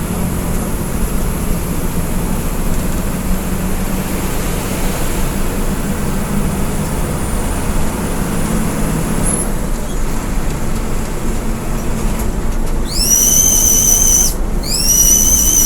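Bus cabin noise: the Bhinneka bus's engine and tyres running steadily at road speed, a low hum under road roar. Near the end, two loud, high-pitched tones of about a second and a half each, each sweeping up at its start and then holding.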